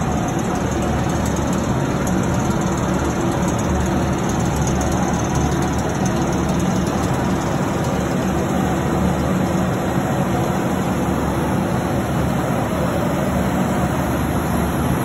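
Machinery of an ozone water treatment system running: a steady low hum with an even rushing noise over it, unchanging in level.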